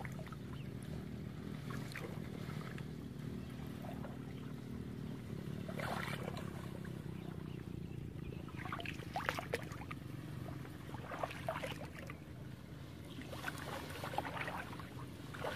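Pond water sloshing and splashing as someone wades slowly through a shallow, weedy pond, with short splashes at irregular intervals over a steady low rumble.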